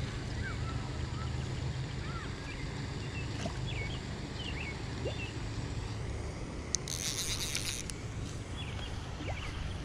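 Small birds chirping again and again over a steady low rumble, with a short burst of hiss about seven seconds in.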